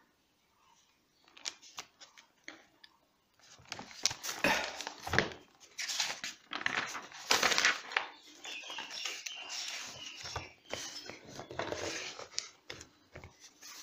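Paper rustling and crackling as a page of a writing pad is turned over and the fresh sheet handled flat, after a few light clicks and taps.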